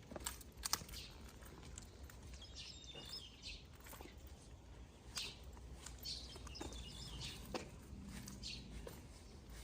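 Faint outdoor ambience with occasional short bird chirps and scattered light knocks.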